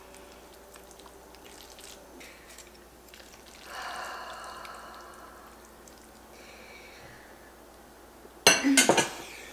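Tongs and then wooden chopsticks moving sauce-coated ramen noodles around a pan, with soft wet squishing and light clinks against the pan, most audible just under halfway through. Near the end comes a brief loud knock.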